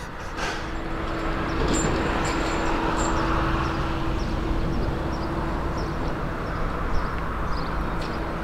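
Haulotte HS 15 E scissor lift running as its platform is raised. A steady hum sits over a rushing noise that builds over the first second or so and then holds steady.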